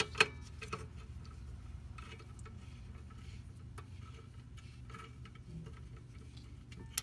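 Handling noise: a sharp click just after the start and a smaller one soon after, then scattered faint ticks, over a steady low hum.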